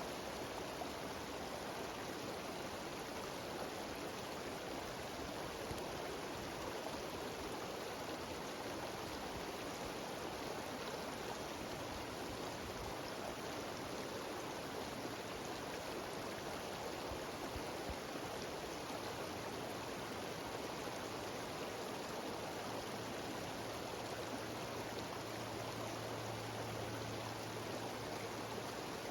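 Steady rush of a cascading mountain stream and small waterfalls tumbling over rocks, with no change throughout. A faint low hum comes in about two-thirds of the way through.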